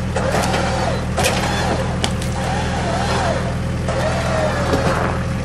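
Jeep Wrangler Rubicon idling while its front electric winch runs, pulling on a tree. The winch motor's whine wavers up and down in pitch as the load changes, then holds nearly steady. A couple of sharp clicks come about one and two seconds in.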